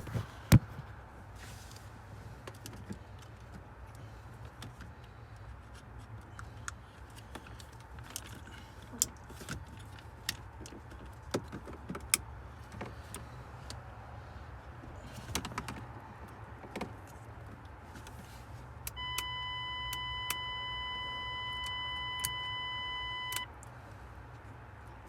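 Plastic clicks, knocks and rattles as wiring connectors and the headlight switch are handled and snapped into place in a Mitsubishi Evo 6's steering column area. About 19 s in, a steady electronic beep sounds for roughly four seconds, then stops suddenly.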